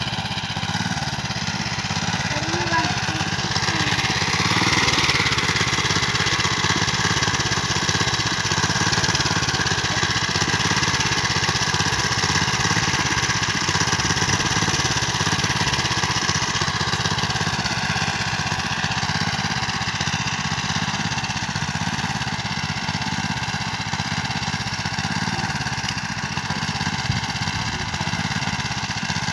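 Honda mini power tiller's small four-stroke engine running steadily as it cultivates the soil, a little louder from about four seconds in.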